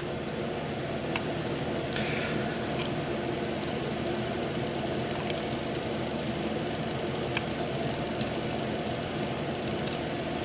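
Steady background hum with a handful of faint, sharp ticks scattered through it, from a soldering iron tip drag-soldering across a chip's fine-pitch pins.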